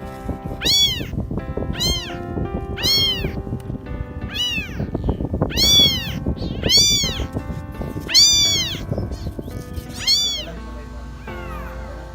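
A cat meowing over and over, about eight loud meows that each rise and fall in pitch, roughly a second or so apart, with two fainter ones near the end. Background music plays under them.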